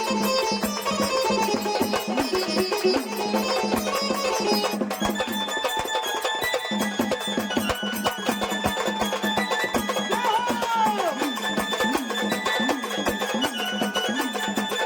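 Indian folk-style music: fast, steady hand percussion over a held drone, with a melody line that slides down about ten seconds in.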